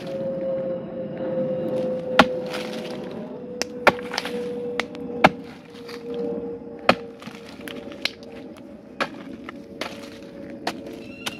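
A digging tool chopping into the hard earth of a termite mound: about ten sharp, irregular strikes with crumbling soil, over a steady hum.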